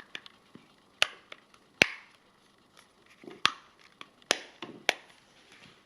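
Sharp plastic clicks and taps, about five loud ones among smaller ones, as the plastic case of a Radiacode 102 radiation detector is handled and snapped back together.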